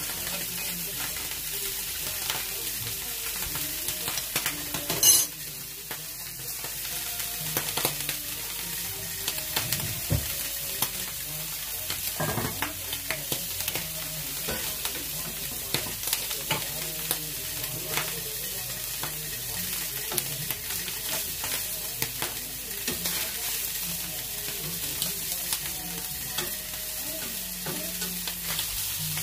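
Whole mackerel sizzling and crackling in a stainless steel Saladmaster skillet, with scattered small clicks and scrapes of tongs and a spatula working the fish. One sharp knock about five seconds in.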